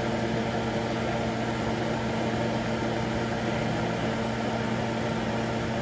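Steady hum of a kitchen fan motor with an even hiss over it.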